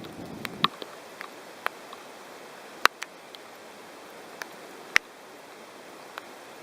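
Steady hiss with a handful of scattered sharp clicks. A low rumble cuts off abruptly under a second in.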